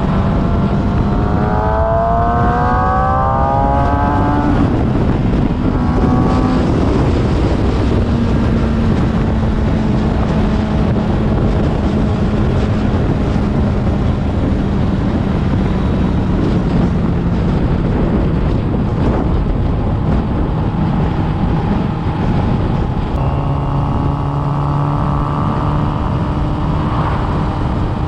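Motorcycle engine running at road speed under heavy wind rush on the microphone; the engine note rises for a few seconds near the start as it accelerates, then holds steady, and another engine note comes in near the end.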